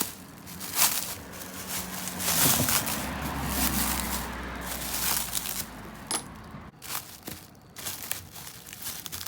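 A cover, likely plastic sheeting, being handled and pulled over an engine: uneven rustling and crinkling with a few sharp clicks and light knocks.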